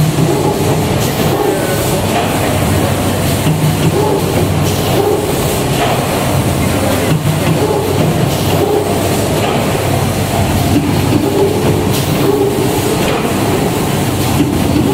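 CMD 540 automatic case-making machine running: a loud, continuous mechanical clatter with irregular clicks and knocks from its pneumatic suction-cup gantry placing boards.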